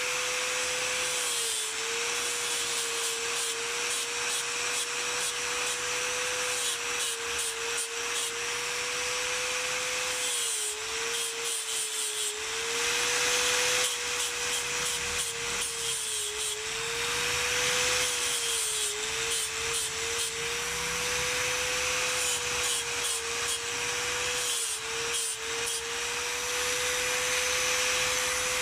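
Electric angle grinder running with an abrasive disc, grinding and shaping a piece of water buffalo horn. The motor's steady whine sags in pitch several times as the disc is pressed harder into the horn, over a constant rasping grind.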